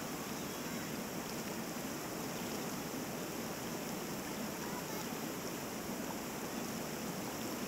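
Creek water rushing steadily over shallow rock ledges and riffles.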